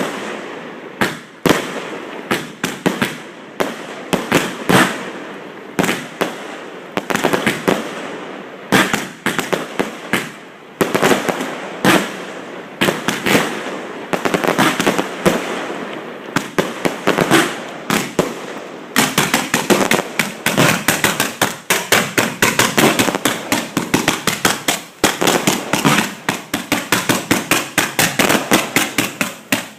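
A fireworks display heard from close range: shells bang in quick succession, many a second, with crackle between them. About two-thirds of the way in the bangs crowd into a faster, near-continuous barrage, which stops abruptly near the end.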